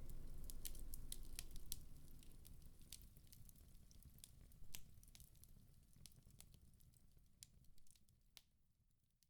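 Bonfire crackling: scattered sharp pops and snaps over a low rumble, fading steadily away.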